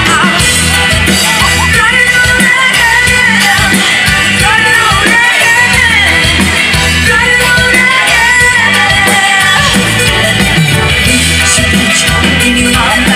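Live concert music over a loud PA system: a singer's voice carrying a melody over a heavy bass line and band backing, heard from within the crowd.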